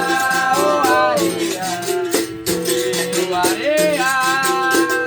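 Berimbau played in a steady rhythm, its low notes alternating between two pitches, with the caxixi shaker rattling on each stroke.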